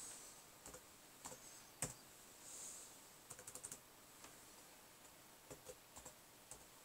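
Faint keystrokes on a computer keyboard: scattered single taps, with a quick run of several about three and a half seconds in.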